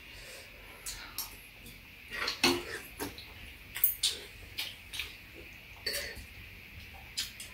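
Metal spoon and chopsticks clinking and scraping against ceramic bowls as two people eat, a scatter of light, irregular clinks.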